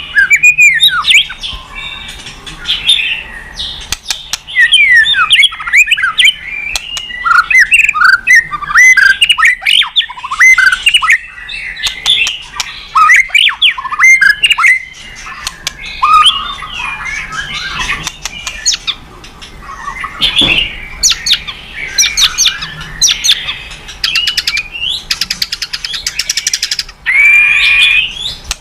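White-rumped shama (murai batu) singing continuously: a rich run of quick, varied whistled phrases, slurred notes and sharp calls, with fast rattling trills near the end.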